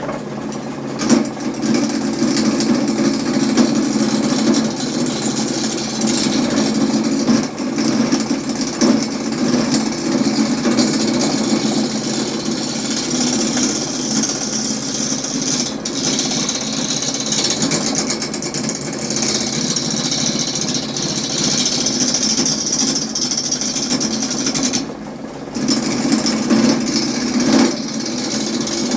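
Harbor Freight wood lathe running steadily with its motor humming, while wood is turned on it with a high hiss that swells in the second half. The sound dips briefly about four seconds before the end.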